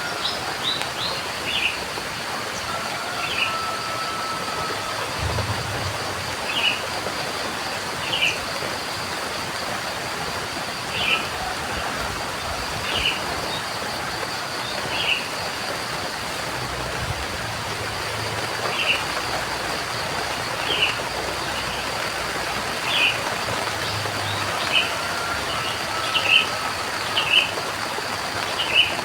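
Steady rain hiss with a bird giving short chirps over and over, about one every one to two seconds, more often near the end.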